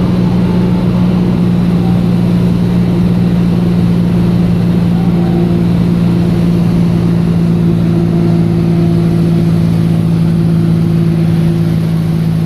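Light aircraft's engine and propeller running steadily, heard from inside the cabin on approach to land.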